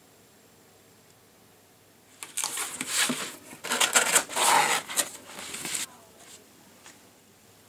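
Corrugated cardboard box being folded and handled: a run of scraping and rustling with sharp clicks of the flaps, starting about two seconds in and stopping near six seconds.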